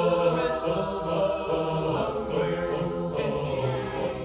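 Choir singing a Christmas song medley in held, chorded lines, the voices blending in close harmony.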